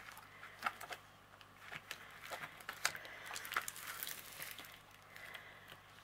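Handling noise from measuring a plastic-covered canvas with a retractable cloth tape measure: irregular small clicks, taps and crinkles of the plastic film as the tape is moved and pulled across it.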